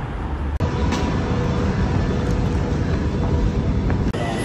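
Loud, steady rumble and noise of the London Underground's Piccadilly line, from a train and station, heard in short clips cut together. The sound breaks off abruptly about half a second in and again near the end.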